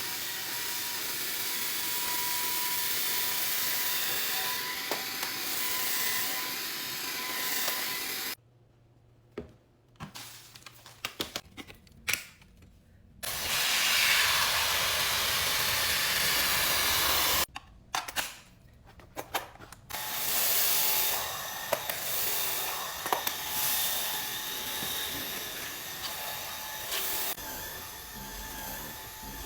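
Wyze cordless stick vacuum running with a steady whine and hiss. It stops twice for a few seconds, with small clicks and knocks in the gaps, and is loudest just after the first stop.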